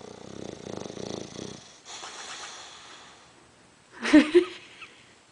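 A dog's raspy, wheezing, snore-like breathing for about a second and a half, then a softer breathy sound, then a short loud noise from the dog about four seconds in.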